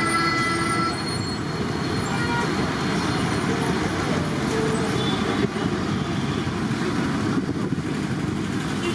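Steady street traffic noise, with a vehicle horn sounding briefly at the very start.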